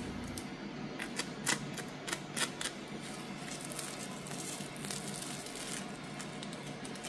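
Crisp crust of a slice of toasted bread crackling as hands squeeze and tear it open, with a run of sharp crackles in the first few seconds and fainter ones after, over a steady low hiss.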